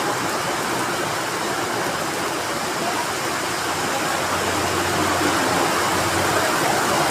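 Heavy rain falling, a steady even hiss, with a faint low hum partway through.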